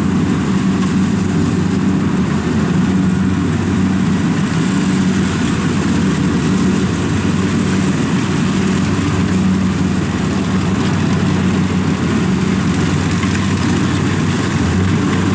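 Kubota DC70 Plus combine harvester engine running steadily under load while harvesting rice, at an even pitch.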